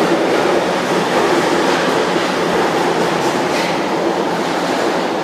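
São Paulo Metro Line 1 subway train running fast past the platform and on into the tunnel: a loud, steady rush of wheels on rail and carriage noise that eases slightly near the end.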